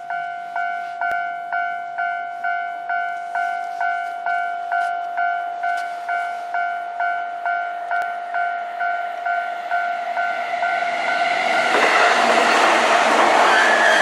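Japanese railway level-crossing alarm ringing in steady two-tone strikes a little over twice a second. About twelve seconds in, a JR Keihin-Tohoku Line E233-series electric commuter train arrives and passes close by. Its wheel and motor noise is the loudest sound and drowns out the alarm.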